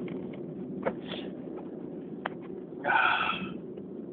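A person breathing and sniffing through the nose during an allergy sneezing fit, with a louder, sharp breath through the nose just under three seconds in.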